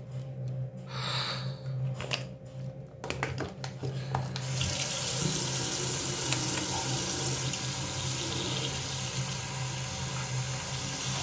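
Crinkling and rustling of a plastic pouch being handled and opened, then a bathroom tap starts running steadily into the sink about four and a half seconds in and keeps running.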